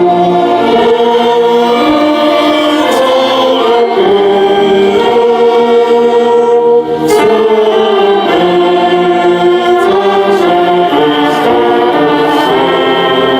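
Slow music with long held chords, the notes changing every second or two.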